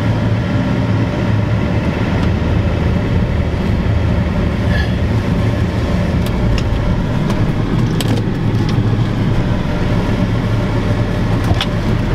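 Ford 7.3 IDI V8 diesel running as the F-250 drives slowly, heard from inside the cab as a steady low drone. A few sharp clicks come around the middle.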